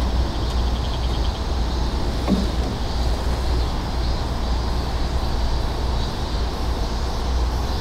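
Steady low rumble and buffeting of wind on the microphone. About two seconds in there is a short, falling sound.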